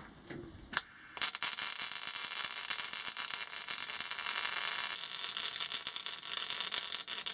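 Welding arc crackling steadily as a steel mounting pad is welded onto the floor pan. The arc strikes about a second in and holds a dense, even crackle.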